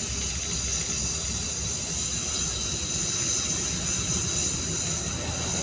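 Gas welding torch flame hissing steadily as filler rod is melted into a leak on a steel diesel tank.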